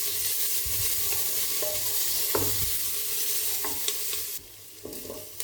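Sliced onions and green chillies sizzling in hot ghee in a pressure cooker as they are stirred, with a few light knocks of the stirring utensil. The sizzle drops away sharply about four and a half seconds in.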